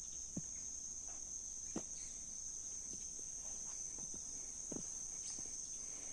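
Insect chorus: a steady high-pitched trill, with a few faint soft taps scattered through it.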